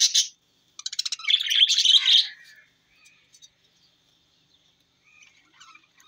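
Budgerigars chirping and chattering: a loud burst of quick, warbling chirps in the first two and a half seconds, then only faint scattered chirps.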